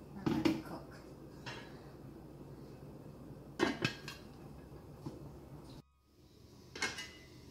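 Metal lid being set onto an aluminium cooking pot and settled, a few light metal clanks with the loudest a little under four seconds in. Near the end a metal spoon clinks as it is set down.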